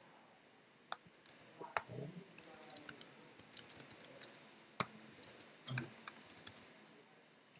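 Typing on a computer keyboard: irregular runs of key clicks, starting about a second in and thinning out near the end.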